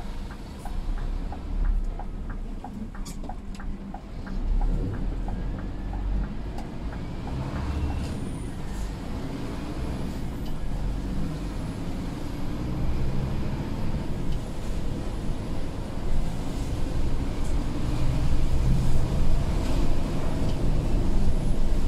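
Scania P250 lorry's diesel engine running under way, heard from inside the cab with road noise, growing louder toward the end. A run of light, regular ticks in the first few seconds.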